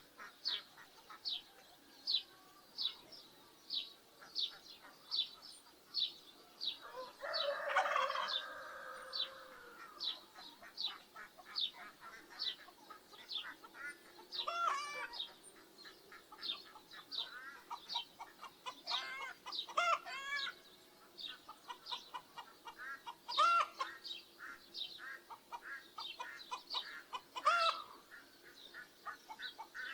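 Chickens: a rooster crows once, long and loud, about seven seconds in, and hens give short clucking calls now and then. Under them runs a steady series of short high peeps, about two a second.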